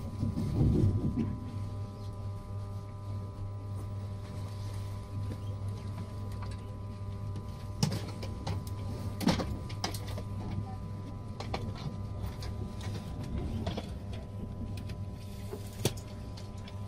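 Inside a passenger train carriage: a steady low hum with several steady whining tones over a noisy background, a louder low rumble about a second in, and a few sharp clicks scattered through.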